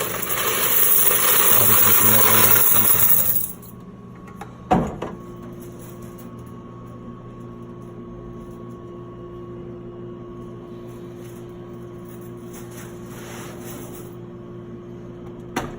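Coins rattling loudly for about three and a half seconds as an open vending machine's coin box is handled, then a single sharp clunk. After the clunk the machine's steady electrical hum carries on.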